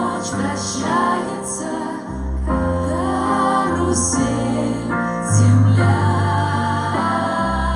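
A song with a female voice singing over instrumental accompaniment with a bass line.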